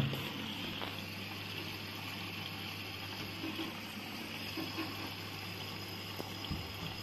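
Siemens WM14N2L3 front-loading washing machine running a wash, with a steady low hum and faint trickling of water in the drum. There is a soft low knock near the end.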